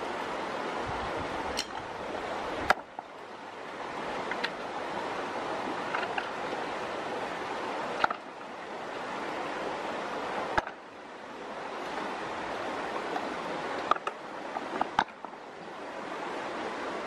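Steady rushing of flowing water, broken by about six sharp clicks or knocks.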